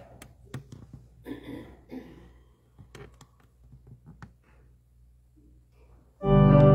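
A hushed church with a low hum, a few small knocks and rustles. About six seconds in, a keyboard instrument comes in suddenly and loudly with a sustained chord.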